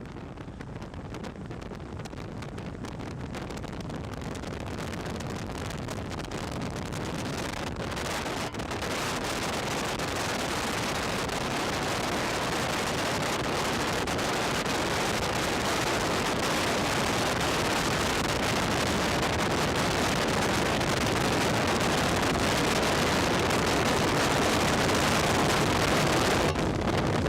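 Strong wind blowing across the camera microphone, a steady rush of noise that grows gradually louder.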